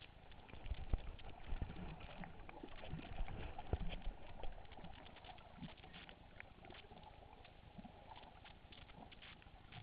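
Underwater ambience: a steady crackle of scattered sharp clicks, typical of snapping shrimp on a reef, with low thumps from water moving against the camera in the first half.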